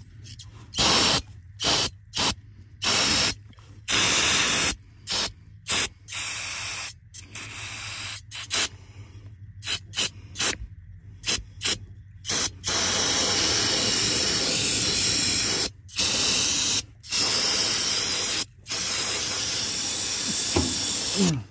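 Aerosol spray cleaner hissing from the can, first in many short squirts, then in longer blasts with a few brief breaks, washing caked mud and oil off a hydraulic hose fitting.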